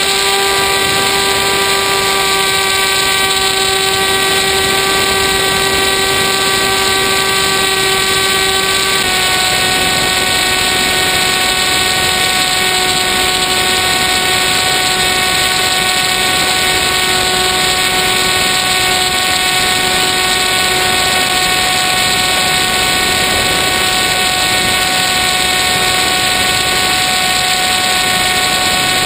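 Onboard whine of an FPV model plane's electric motor and propeller, a steady pitched tone over rushing wind noise. The pitch steps slightly lower about nine seconds in, as the throttle is eased.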